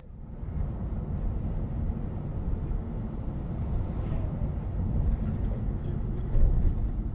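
Steady low rumble of road and engine noise inside a moving car, picked up by the dashcam's microphone, with a brief louder low rumble about six seconds in.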